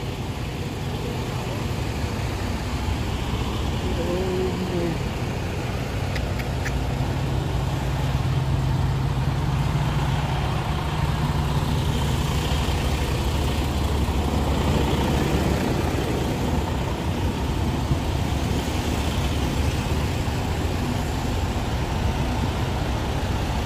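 Diesel engines of parked semi-trucks idling, a steady low rumble that swells slightly partway through.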